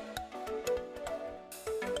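Background music with a steady beat and a melody.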